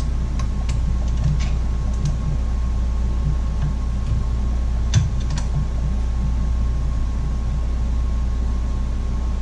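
Scattered light clicks and taps of hands working a fuel line loose from a chainsaw's fuel tank, a few near the start and two about five seconds in, over a steady low hum.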